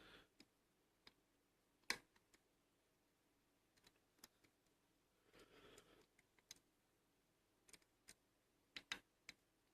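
Faint, sparse clicks of lock picks and a tension tool working the pins and sidebars of a Bi-Lock rim cylinder, with one sharper click about two seconds in and a short run of clicks near the end.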